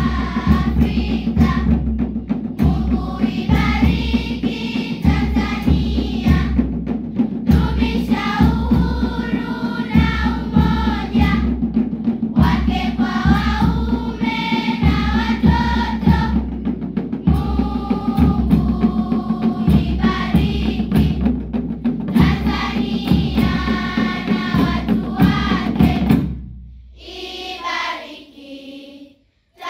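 Choir singing with a steady, heavy drum beat. About 26 seconds in, the drums stop and the voices carry on more quietly, then break off briefly near the end.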